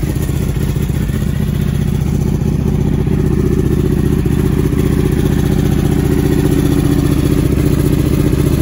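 Motorcycle engine running steadily at low revs, with no revving.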